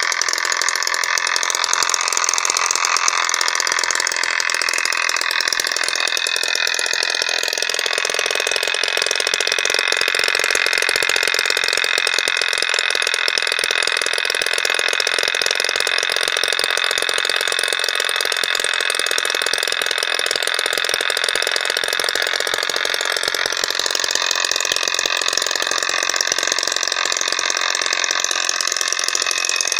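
Small home-built two-stroke engine made from a refrigerator compressor's internals, fired by a motorcycle CDI and ignition coil, running continuously with a fast, high-pitched rattling buzz. Its pitch shifts slightly around eight seconds in and again near the end.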